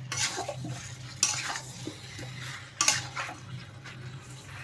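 Metal spatula scraping and stirring chicken and potatoes through thick masala in a metal kadai, a few sharp scrapes against the pan, over a faint sizzle of frying. This is the bhuna (kasha) stage, the chicken being sautéed in the spice paste.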